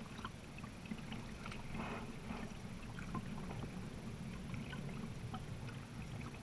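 A kayak being paddled along calm water: a steady low rumble of water moving along the hull, with scattered small drips and splashes from the paddle, and one slightly louder paddle splash about two seconds in.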